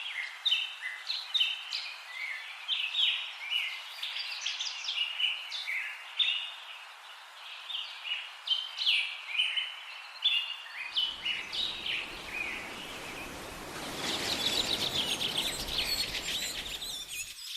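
Songbirds chirping, with many short, quick notes repeated in a busy chorus. About two-thirds of the way in, a low rushing noise joins, and near the end the calls turn into a denser, rapid chatter.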